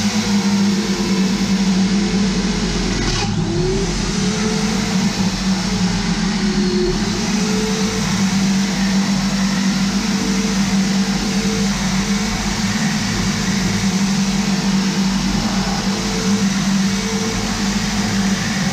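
Bench drill press running steadily while drilling holes in a steel tool holder, its tone sagging and recovering a few seconds in as the bit is fed into the steel. A single sharp click comes about three seconds in.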